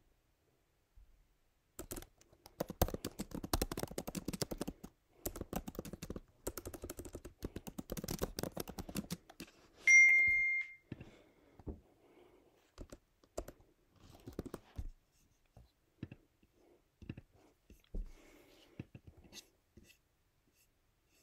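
Typing on a computer keyboard: fast runs of key clicks for several seconds, then a single short high electronic beep, the loudest sound, then scattered key presses.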